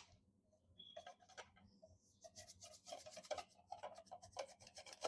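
Wire whisk beaten by hand through egg whites in a bowl, its wires scraping and ticking against the bowl in fast, even strokes, faint at first and steadier from about two seconds in. The whites are partly beaten and frothy, not yet stiff.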